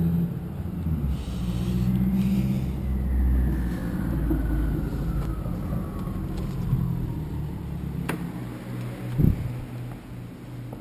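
Low motor-vehicle rumble with a faint whine that slides down in pitch over a few seconds. A sharp click comes near the end, then a short dull thud.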